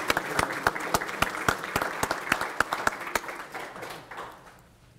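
Audience applauding, with one clapper close by at a steady three to four claps a second; the applause dies away about four seconds in.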